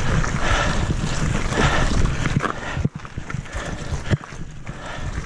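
Mountain bike rattling and rumbling over a rough dirt singletrack, tyres on dirt and roots with scattered clicks and knocks from the bike, dropping off briefly about three seconds in.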